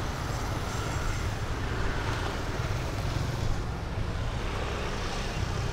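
A vehicle on the move: a steady low rumble under an even hiss, with no change in pace.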